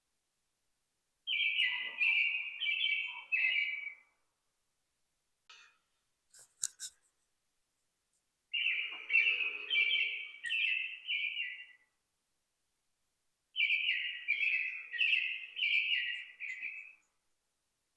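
A songbird singing three phrases, each a quick run of five to seven repeated, slightly falling notes lasting about three seconds. A few short sharp clicks come between the first and second phrases.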